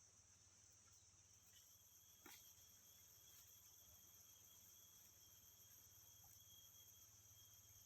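Faint, steady high-pitched chirring of insects, with another thin tone joining about a second and a half in and a single soft click about two seconds in.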